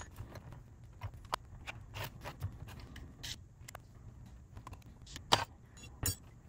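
Scattered small metal clicks and light knocks as an SU H1 carburetor body and its small parts are handled and worked at with a screwdriver during disassembly, with a few louder knocks a little past five and six seconds in.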